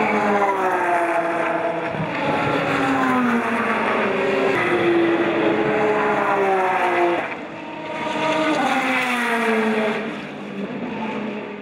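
Race car engines going by one after another, about four passes, the pitch of each falling as it goes past.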